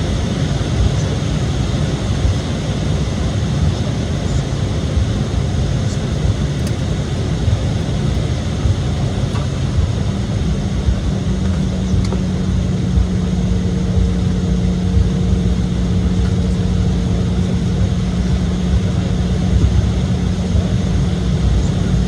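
Cabin noise inside an Embraer E-175 jet: a steady rumble from its General Electric CF34 turbofan engines and airframe. About halfway through, a steady low hum joins in, followed a few seconds later by a fainter, higher one.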